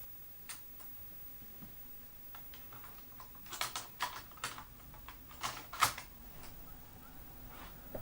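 Scattered light clicks and taps of computer controls being worked, typing-like, with a few single clicks in the first three seconds and a cluster of sharper ones from about three and a half to six seconds in.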